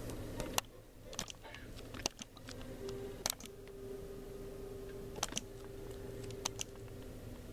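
Irregular sharp clicks, like keys being tapped, over a steady low hum; from about three seconds in a faint steady tone sounds as well.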